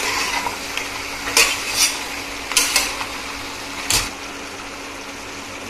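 A metal spoon clanking and scraping against a cooking pot as mutton is stirred and fried with mint leaves. There are several sharp clanks in the first four seconds over a steady low hum, then only the hum.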